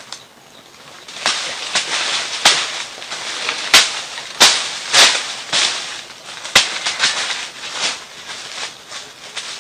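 A bamboo stick striking and digging into soil and dry leaves, about a dozen sharp cracks at an uneven pace, with dry leaves crackling and rustling between the hits.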